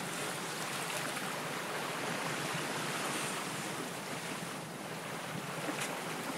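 Steady wind on the microphone and water rushing along the hull of a sailboat under sail.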